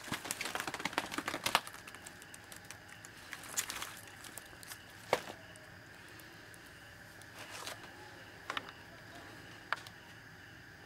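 Woven plastic sack crinkling and rustling as it is shaken out over a basket of fish, a dense crackle in the first couple of seconds, then a few scattered sharp clicks and taps. A faint steady high tone runs underneath.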